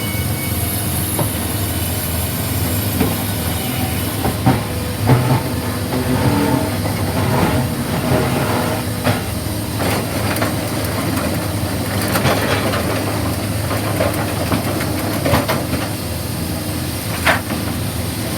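Sawmill log debarker running: a steady mechanical drone with scattered knocks and clattering throughout.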